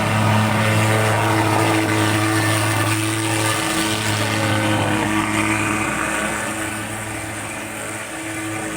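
Mosquito fogging machine running with a loud, steady buzzing drone while it sprays insecticide smoke, a sound loud enough to be taken at first for a helicopter or a JCB. It eases off a little in the last couple of seconds.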